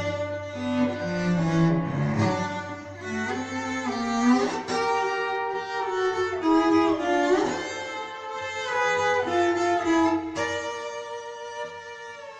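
Background music of bowed strings playing sustained notes. The low bass part drops out about ten seconds in, and the music grows quieter towards the end.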